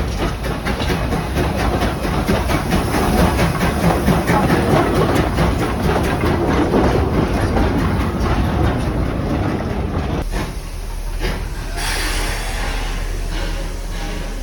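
Steam train running on the rails, its wheels and carriages clattering loudly, with a steady stream of fine ticks. About ten seconds in the clatter drops off suddenly and leaves a quieter run with a light hiss.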